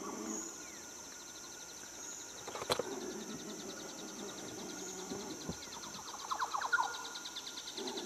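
Natural outdoor ambience: a steady high insect trill with a fast pulsing buzz, one sharp click a little under three seconds in, and a brief flurry of small-bird chirps about six and a half seconds in.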